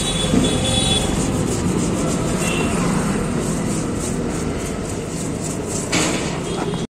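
Brush scrubbing the petrol-wet stator windings of an e-rickshaw motor, a steady rough rubbing, to clean off rust left by water that got into the motor.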